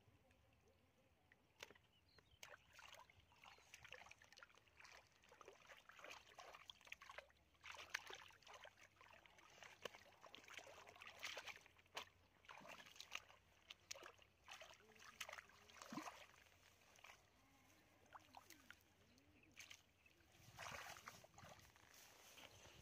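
Faint splashing and sloshing as hands grope through shallow muddy water, with scattered small irregular splashes.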